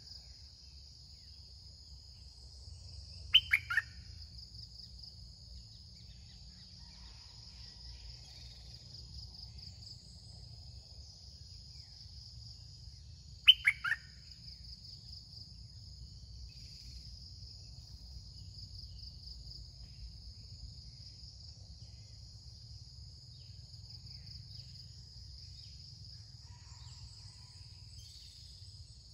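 Red-whiskered bulbul calling twice, each call a quick burst of three or four sharp descending notes, about ten seconds apart. Between the calls a steady, high, pulsing insect drone runs throughout.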